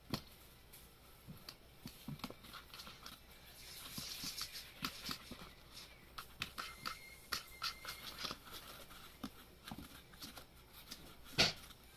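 Kitten scratching and pawing at cardboard: scattered light scratches and taps, a busier run of scratching about four to six seconds in, and one louder thump near the end.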